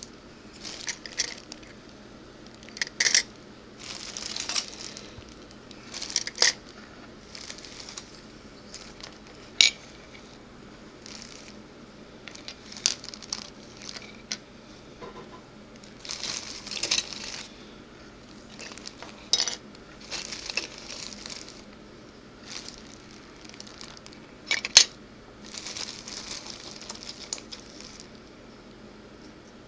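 Loose plastic and chrome-plated model kit parts clicking and clattering against one another and the tabletop as they are picked up and sorted by hand. Irregular sharp clicks come between short stretches of shuffling.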